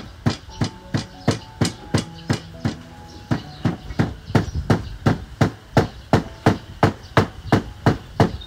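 Wooden pestle pounding in a glazed clay mortar, with steady, even strikes about three a second.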